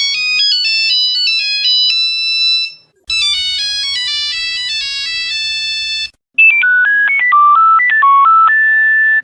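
Nokia mobile phone ringtones played one after another: three short melodic clips of about three seconds each, separated by brief breaks. The first two are high, beeping electronic tunes; the third is lower and fuller, with a steady low tone beneath the melody.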